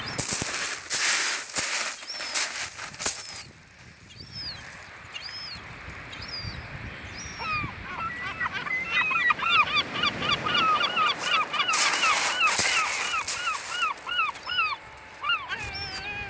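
Gulls calling. First come scattered single calls, then from about halfway a fast run of repeated yelping calls, roughly three a second. Short loud bursts of noise come near the start and again about three-quarters of the way through.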